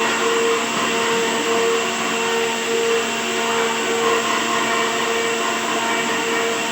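A power tool or woodworking machine running steadily, with a tone that swells and fades about once a second for the first few seconds.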